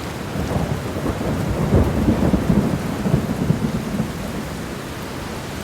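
Heavy rain pouring in a thunderstorm, with a low rumble of thunder that swells about two seconds in and slowly dies down.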